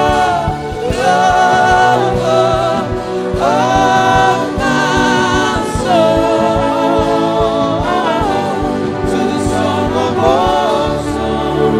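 Gospel worship music: wordless singing voices holding and sliding between long notes over sustained chords.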